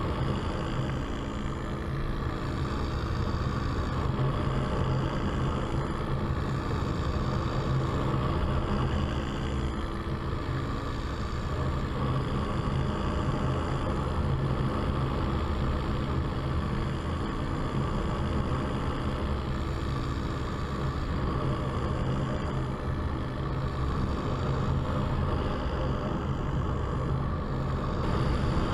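A paramotor's engine and propeller running steadily in flight, with no change in power.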